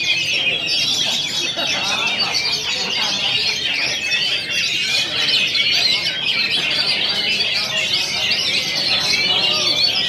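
Many caged oriental magpie-robins singing at once: a dense, unbroken chorus of rapid whistles and chirps.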